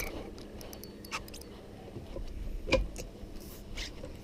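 A few light clicks and knocks, with a slightly louder knock near the end, over a low steady rumble.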